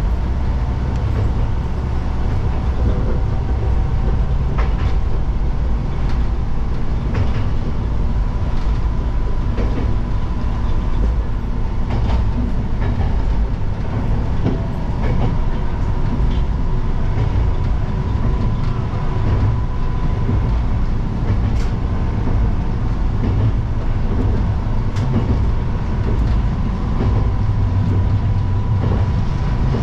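Tsugaru Railway diesel train running steadily, heard from inside at the front: a continuous low engine and running rumble with a faint steady whine, and scattered clicks of the wheels over rail joints every few seconds.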